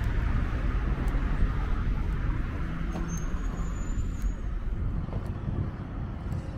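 City road traffic: cars and buses running along the street, a steady low rumble that eases a little near the end.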